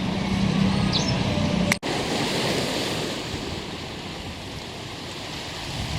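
Ocean surf washing on a beach, a steady rushing that swells and eases, with some wind on the microphone. For the first couple of seconds, before a sudden cut, a steady low hum plays instead.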